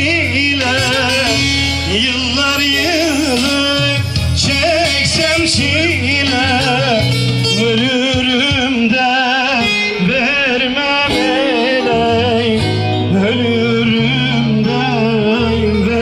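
Turkish folk song over a PA system: a man singing an ornamented, wavering melody over amplified instrumental backing with a steady bass line.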